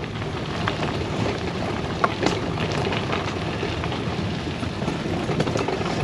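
A bicycle towing a caravan trailer rolling over a rough path: a steady rumble of tyres with scattered clicks and rattles. The sharpest knock comes about two seconds in.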